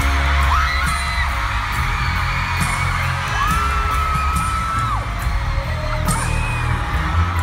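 A live pop-rock band plays loud through the arena PA, heard from inside the crowd: a heavy, boomy bass and drums keep a steady beat. High held voices from the crowd rise over it several times, the longest for about a second and a half.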